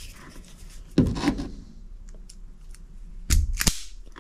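Hand wire cutters snipping through insulated automotive wire: a sharp snap about a second in, then two more close together near the end.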